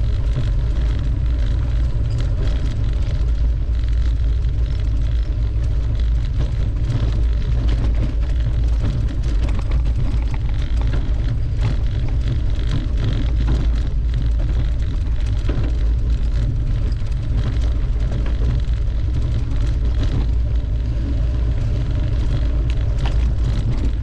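Mountain bike rolling along a dirt trail: a steady low rumble of wind on the microphone and tyre noise, with many small rattles and knocks.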